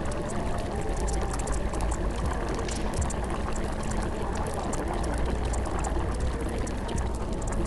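Steady rush of running or pouring water, a continuous wash of noise speckled with many small splashing ticks.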